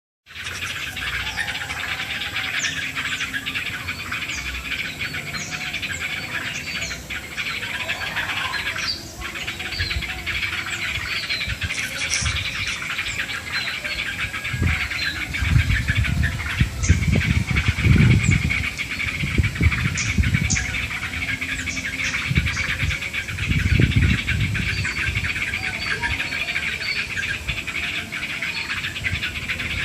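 A dense, continuous chorus of many small birds chirping at once. Low rumbles come and go in the middle, the loudest around the middle and again a little later.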